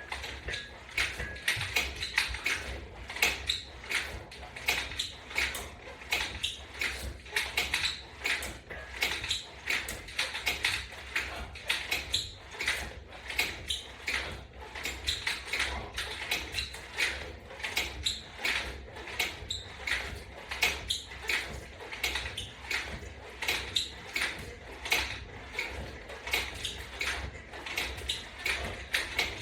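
A flat resistance band and its bar attachment being worked through side-crunch repetitions: a rapid, irregular stream of clicks and squeaks, several a second, with a steady low hum underneath.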